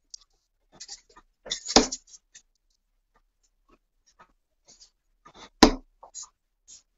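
Steel-tip darts striking a bristle dartboard: two sharp thuds about four seconds apart, with light clicks of dart handling between them.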